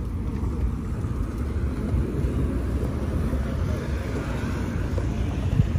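A steady low rumble of vehicle noise.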